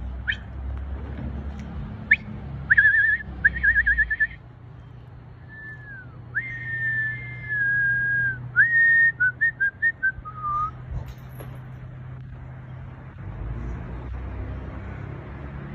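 A person whistling: a few short chirps and two warbling trills, then a falling slide and a long held note that sinks slightly, ending in a run of quick notes stepping down in pitch.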